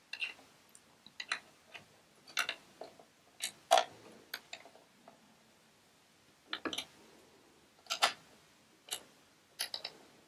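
Small disc-shaped screwdriver clicking against the metal needle plate screws of a drop-in-bobbin sewing machine as they are tightened snug: a dozen or so short, sharp metal clicks at irregular intervals, some in quick pairs.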